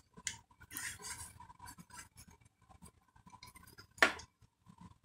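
Faint rustling and light scratches from a plastic-film-covered diamond painting canvas and a tape measure being handled, with one short sharp snap about four seconds in.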